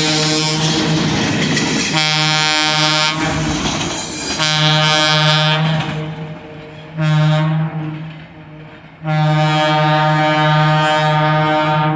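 ALCO RS-32 diesel locomotive's air horn blowing the grade-crossing signal: long, long, short, long, the last blast held about three seconds. The tail of an earlier blast ends about a second in, and the locomotive's diesel engine and wheels are heard in the gaps between blasts.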